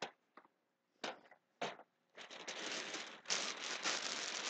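A few light handling clicks, then plastic packaging crinkling steadily from about two seconds in as a plastic bag is gripped and handled.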